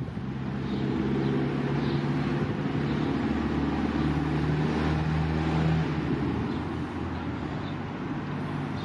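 Steady low hum of a running vehicle engine, over outdoor background noise.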